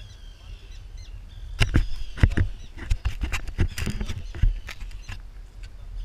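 Wind rumbling on the microphone, with birds calling faintly. From about a second and a half in, a run of irregular sharp knocks and scuffs from the camera being bumped and people clambering barefoot over rock.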